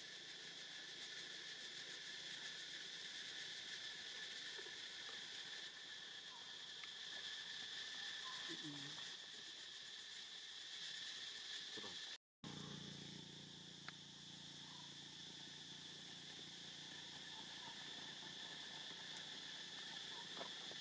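Steady insect chorus, a continuous high-pitched buzzing drone that drops out for a split second just past the middle.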